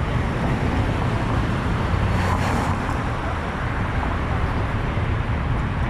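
Steady vehicle and traffic noise: an even low rumble of engine and road sound.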